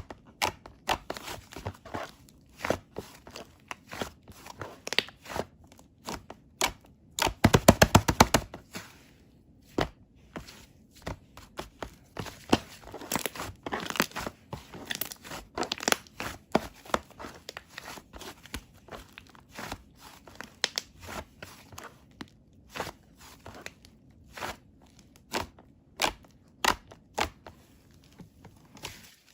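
Toothpaste being worked by hand, giving irregular sticky clicks and crackles, with a quick rattling run of clicks about seven seconds in.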